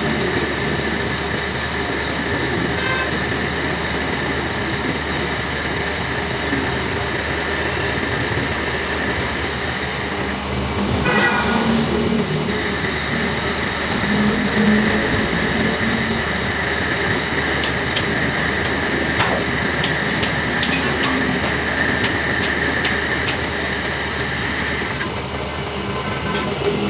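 Metal lathe running steadily: a continuous machine clatter with a steady high whine. The sound changes about ten seconds in and again near the end.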